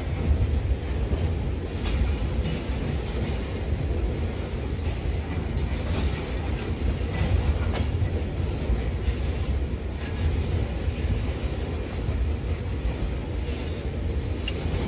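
Freight train of aggregate hopper cars rolling past: a steady low rumble of steel wheels on rail, with a few short clanks.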